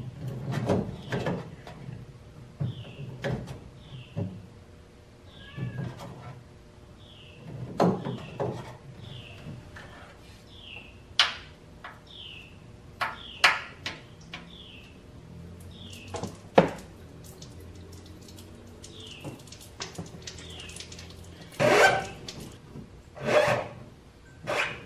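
Oil filter wrench pliers and hands working spin-on diesel fuel filters loose: scattered metallic clicks and knocks, the loudest few near the end. Through roughly the first fifteen seconds a short high falling chirp repeats about once a second.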